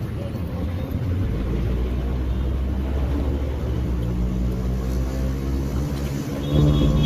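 Auto rickshaw's small engine running under way with a steady low drone, heard from on board in street traffic. A louder sound with a steady pitch comes in near the end.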